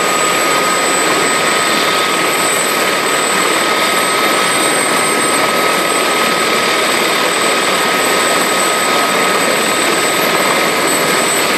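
Aérospatiale SA341G Gazelle helicopter running on the ground with its rotors turning, before lift-off: its Turbomeca Astazou turboshaft gives a steady, high turbine whine over a loud, even rushing noise.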